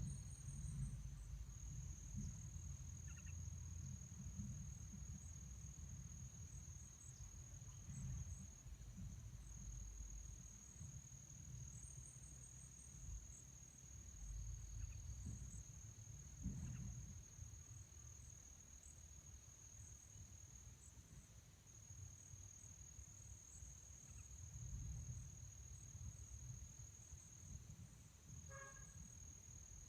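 Insects, likely crickets, trilling steadily at one high pitch throughout, over a low background rumble. A few faint short chirps come through, with a brief call near the end.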